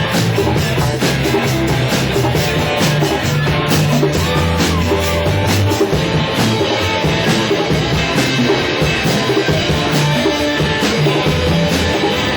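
Rock band playing live, loud and continuous, with a drum kit and guitars.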